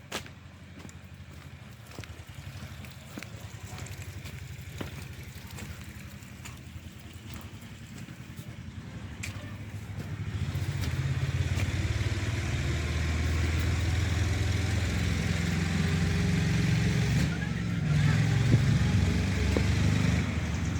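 A motor vehicle's engine running steadily, growing louder and closer about halfway through.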